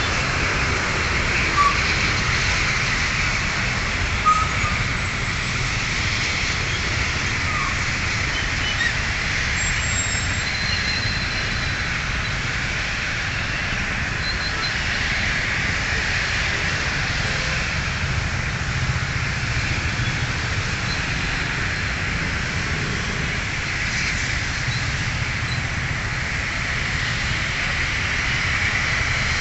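Road traffic noise from a congested road: a steady low rumble of vehicles under a constant hiss, with a few short faint high tones in the first several seconds.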